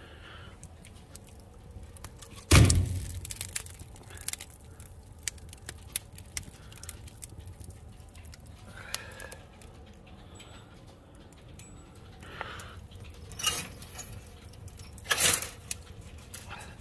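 Wood fire crackling and popping in a fireplace. A split log lands on the grate with a heavy thump a few seconds in, and near the end the chain-mesh fireplace screen is drawn, jangling.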